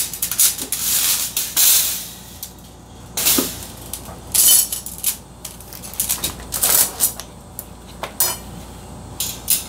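Irregular clinks, knocks and rattles of hand handling: hatching eggs and gear being picked up and set into the racks of a wine fridge used as an incubator. A few of the knocks ring briefly.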